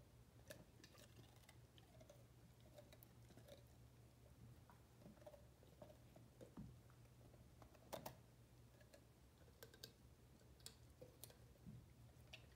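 Faint, irregular crunching and clicking of a Great Dane puppy nibbling a raw carrot, the loudest crunch about eight seconds in.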